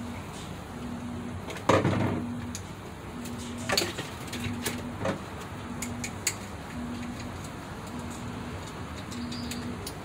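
Screwdriver work inside a refrigerator's freezer compartment: light clicks and knocks of the tool on screws and metal parts, with one louder clatter about two seconds in. A low tone pulses steadily in the background, about once a second.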